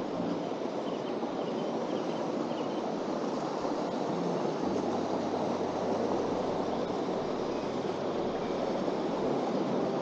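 Steady rush of flowing water from a stream spilling down a small chute, growing a little louder partway through.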